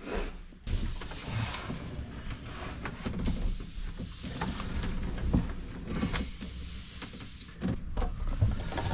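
Heavy sailboat gearbox being lowered by block and tackle and set down on wooden blocks: irregular knocks, clunks and scrapes of metal and rigging as it is guided down.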